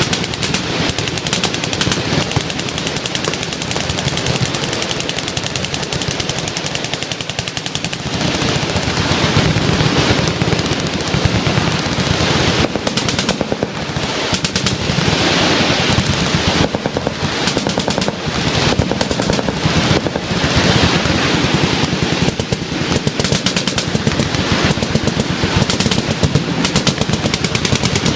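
Many machine guns firing at once on a firing line: dense, overlapping automatic bursts with no break.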